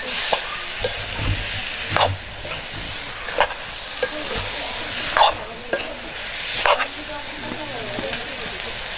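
Vegetables frying and sizzling in a large metal wok over a wood fire while a metal ladle stirs them, the ladle scraping and knocking against the pan about five times.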